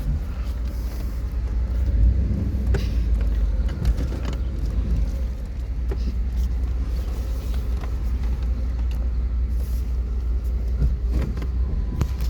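1993 GMC Yukon's V8 running as the truck is driven slowly, a steady low rumble with a few light knocks.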